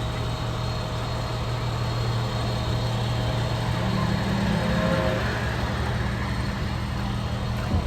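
A vehicle engine idling steadily with a low hum, growing a little louder about four to five seconds in.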